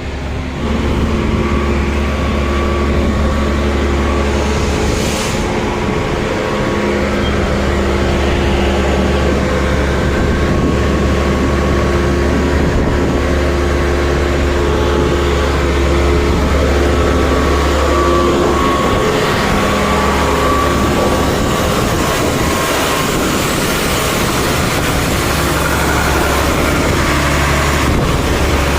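A motor vehicle's engine running steadily, a continuous low hum with steady tones above it.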